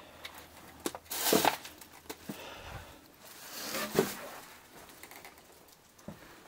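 Irregular knocks, creaks and rustling of someone moving about on foot, with two louder scraping, rustling noises about a second in and about four seconds in.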